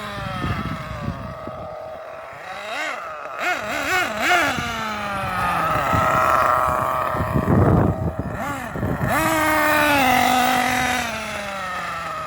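Small nitro engine of a Losi 8IGHT-T 1/8-scale RC truggy revving up and down as it is driven, its pitch rising and falling several times. Wind buffets the microphone throughout.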